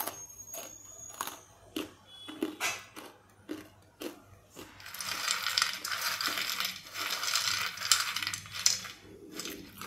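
Crisp fried shankarpali being bitten and chewed, a run of sharp crunches. About five seconds in, a steady rustling clatter begins as a hand stirs the fried pieces around on a plate.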